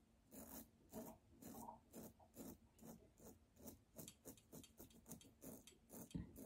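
Faint, quick rasping strokes of a King C Gillette double-edge safety razor scraping through lathered stubble, several short strokes a second.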